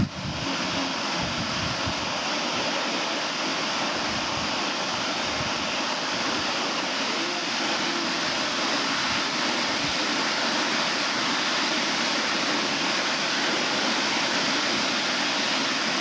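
Tall waterfall pouring down a rock face into a shallow pool: a steady, unbroken rush of falling water.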